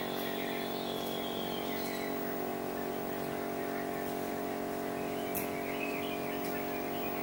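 A steady machine hum made of several steady tones, with a few faint clicks and some faint high chirps about five to six seconds in.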